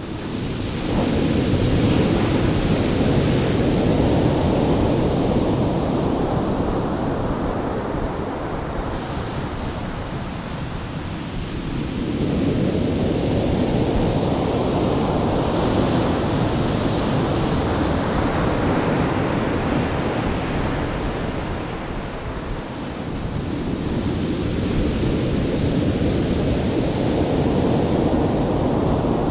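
Ocean waves breaking and washing on the shore in slow surges, each swell of surf building and easing over about ten seconds, three times.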